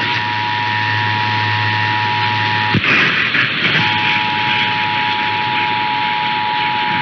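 Emergency Alert System two-tone attention signal: two steady tones sounding together over a loud hiss. It cuts out with a click and a burst of hiss a little under three seconds in, then resumes about a second later.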